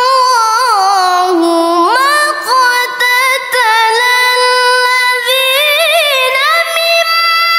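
A woman reciting the Quran in melodic tilawah style: one voice holding long high notes with ornamented turns, dipping to a lower note about a second and a half in and sweeping back up half a second later.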